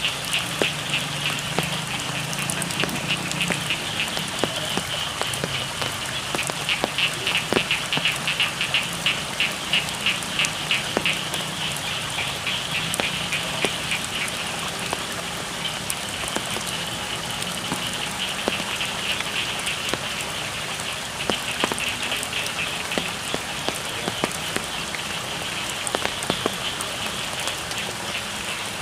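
Steady rain falling, with scattered drop impacts, under a chorus of frogs calling in fast, high pulsed trills that swell and fade.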